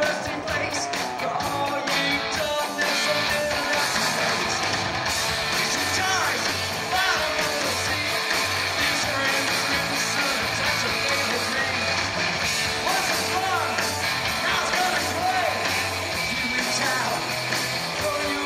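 Live rock band playing: electric guitar and drums, with a singer's voice over them.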